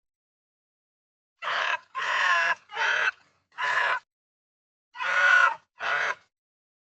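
A pig squealing: six short, loud squeals, four in quick succession starting about a second and a half in, then a pair near the end.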